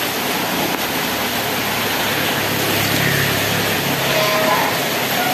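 Heavy tropical downpour, a steady loud hiss of rain. About two seconds in, a low hum joins it for a couple of seconds.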